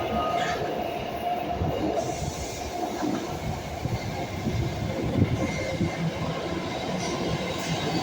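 BART rapid-transit train running along the track, a steady rumble of wheels on rail with a faint even hum over it.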